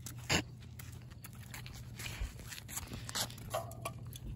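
Footsteps on a concrete sidewalk and the rubbing of a hand-held phone being carried: scattered light scuffs and knocks over a low steady hum, with one sharper knock about a third of a second in.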